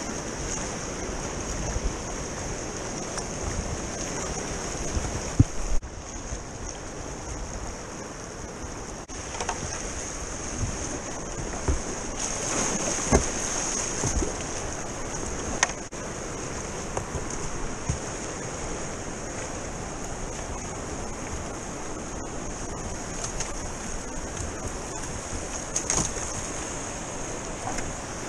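Fast river water rushing over riffles around a kayak, a steady wash, with occasional short splashes and knocks from the paddle strokes.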